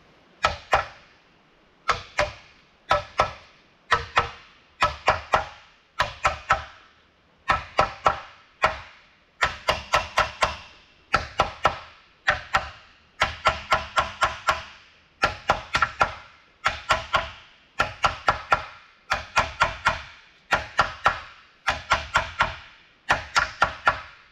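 Hand hammer blows driving a bearing into its bore in an Eaton RTLO16913A transmission case, struck in quick groups of two to four about once a second. Each blow rings metallically.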